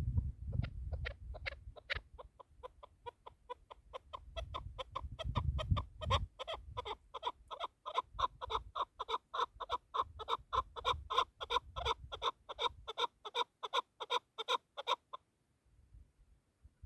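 Chukar partridge calling: a fast run of short repeated chuk notes, about five a second, building in loudness and then stopping abruptly near the end.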